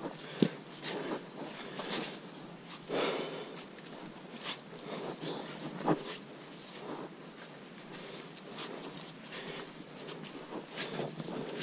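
Footsteps on a muddy, leaf-covered forest trail, with irregular scuffs, crunches and rustling of gear and vegetation. A sharp knock comes about half a second in, a longer scrape around three seconds, and another knock near six seconds.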